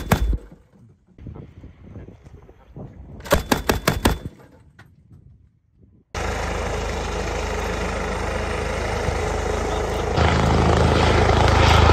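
Vehicle-mounted heavy machine gun firing two short bursts, the second about seven rounds in a second. Then, from about halfway, a steady helicopter noise that grows louder and deeper a few seconds later.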